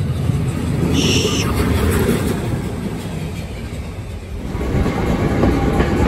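Steam locomotive standing in a cloud of its own steam: a loud rushing of escaping steam with a low rumble, and a brief high tone about a second in. A little after four seconds it changes to the steady rumble of the steam train running on the line.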